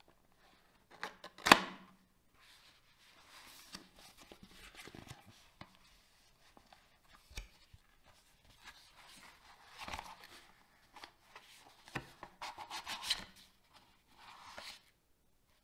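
Mouse packaging being handled and opened: intermittent rustling, scraping and light knocks, with one sharp knock about a second and a half in and a busier stretch of rustling near the end.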